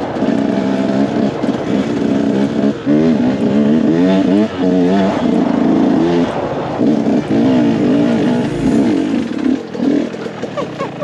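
Dirt bike engine running, its revs rising and falling repeatedly with the throttle.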